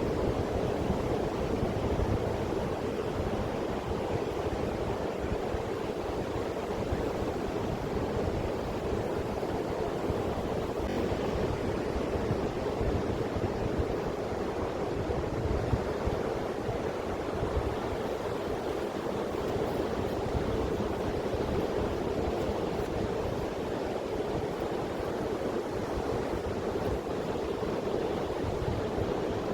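Sea surf washing steadily onto the beach, an even rushing noise with no distinct events.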